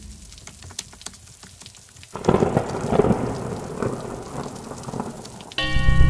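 Rain and thunder sound effect: a faint crackle of rain, then a sudden thunderclap about two seconds in that rumbles and fades. Music with a strong bass cuts in just before the end.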